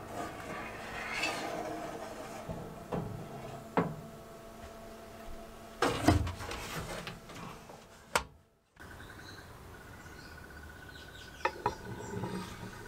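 Metal clinks, knocks and scrapes on an oven's wire rack as a gloved hand lifts parts out, over a faint steady hum. After a short break, a couple of light metal clicks as a steel blade is set against the shear body near the end.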